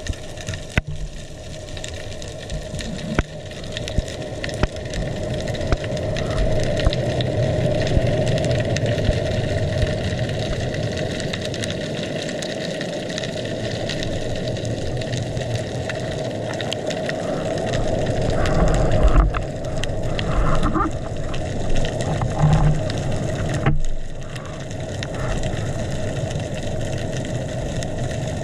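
Underwater noise picked up through a speargun-mounted camera: a steady hum and hiss with scattered sharp clicks, growing louder with uneven swishes and knocks past the middle.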